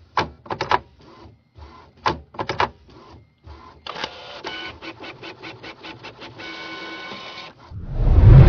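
Electronic intro sound effects: scattered short clicks and bleeps, then a fast run of about five ticks a second ending in a steady buzzing tone, then a loud, deep swell near the end.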